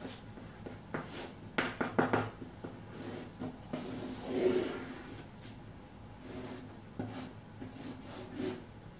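Chalk on a blackboard drawing a diagram: irregular short taps and scraping strokes, with a longer hissing stroke about four and a half seconds in.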